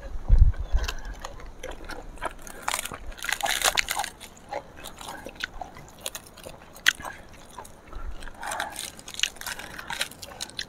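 Crunching and chewing of raw vegetables close to the microphone: irregular crisp bites and crackles. A dull low thump comes just after the start.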